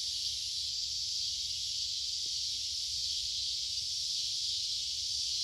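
Steady high-pitched chorus of insects, an unbroken hiss-like drone.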